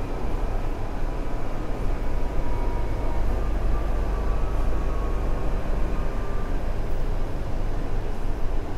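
A Mumbai Metro Line 2A/7 train running, heard from inside the carriage: a steady low rumble and rush of the wheels on the track, with a faint whine now and then.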